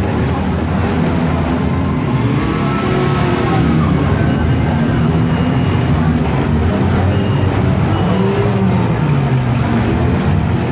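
Demolition derby cars' engines running loud and revving, their pitch rising and falling continuously.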